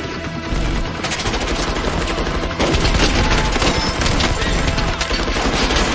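Rapid gunfire from several guns in a film shootout, with many shots a second. It grows louder about two and a half seconds in.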